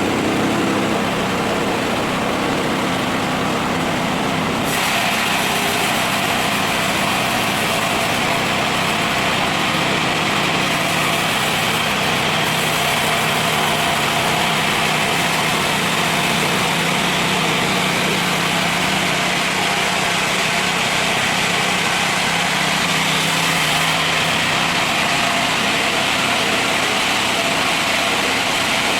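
An engine running steadily, with a brighter, hissing sound joining it about five seconds in and continuing.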